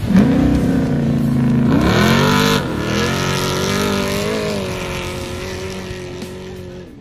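Off-road race vehicle's engine revving hard as it launches, its pitch climbing and then dropping sharply at a gear change about two and a half seconds in. It pulls on through the next gear and fades as it moves away.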